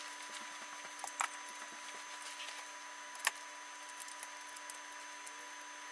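Light clicks and taps of a circuit board and small parts being handled on a workbench mat, with one sharper click a little over three seconds in, over a faint steady hum.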